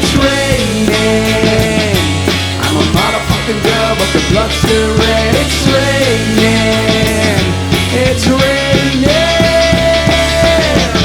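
Instrumental rock music: drums and bass under a lead line of long held notes that slide up and down between pitches, with no singing.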